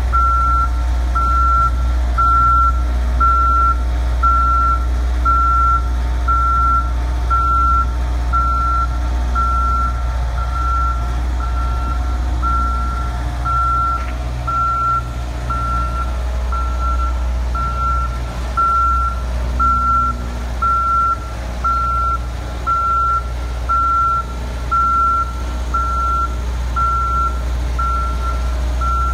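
Boom lift's motion alarm beeping steadily, about three single-tone beeps every two seconds, over the low drone of the lift's engine as the machine drives.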